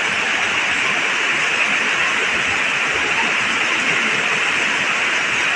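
Heavy rain pouring down in strong wind, a loud, steady hiss.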